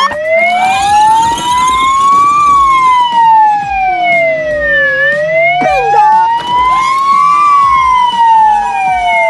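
Police siren wailing, its pitch rising and falling twice.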